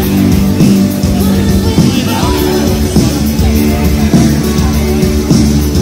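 Live rock music: a band playing with a singer.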